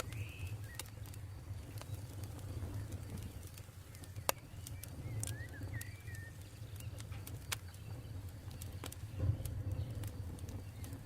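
Campfire burning with a low steady rumble and scattered sharp crackles and pops, one louder pop about four seconds in. A bird chirps briefly at the start and again about five seconds in.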